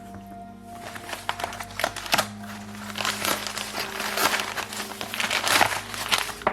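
Packaging being opened by hand, with dense crinkling and crackling that starts about a second in and is busiest in the second half.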